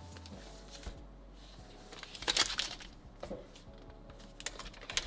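Paper protective wrap on a new laptop crinkling as it is handled, in two short bursts, the first a little over two seconds in, over soft background music.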